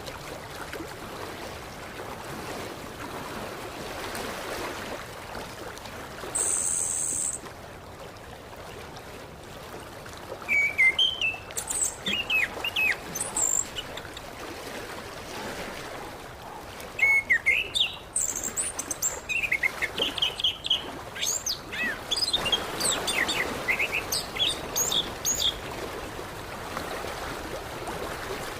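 Orange-headed thrush singing short, varied phrases of quick gliding whistled notes with pauses between them, over a steady background hiss. A brief high buzz comes at about six seconds in.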